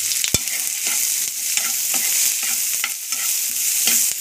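Sliced onions and green chillies sizzling in hot oil in a nonstick frying pan, stirred so the spatula scrapes across the pan again and again. A single sharp knock sounds just after the start.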